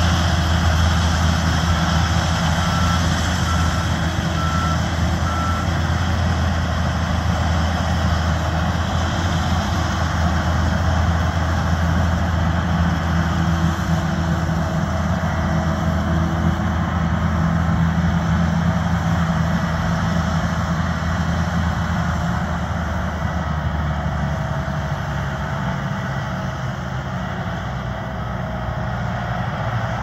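John Deere S790 combine harvester running steadily while harvesting wheat, its diesel engine and threshing machinery making a deep, even drone. A reversing alarm beeps repeatedly for a few seconds near the start, and a thin wavering whine joins the drone in the second half.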